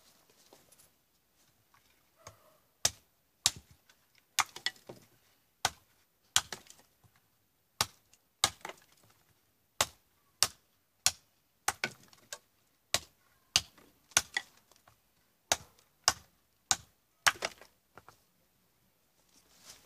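Fixed-blade hunting knife with a Böhler N690 steel blade chopping through a thin branch on a wooden tree stump: about two dozen sharp chops, roughly one or two a second, that stop a couple of seconds before the end.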